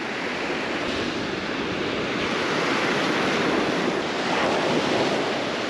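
Steady wash of ocean surf breaking along the beach, with some wind on the microphone; the noise swells slightly about four seconds in.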